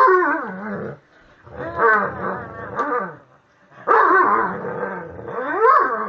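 A dog growling in play while tugging on a toy, in four drawn-out bouts of about a second each, the pitch sliding up and down.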